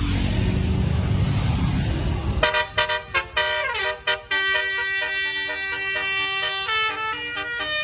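A running vehicle's loud rumble, then about two and a half seconds in a basuri telolet musical air horn plays a melody: several trumpet tones sounding together, changing note every fraction of a second, with a falling glide and then long held notes.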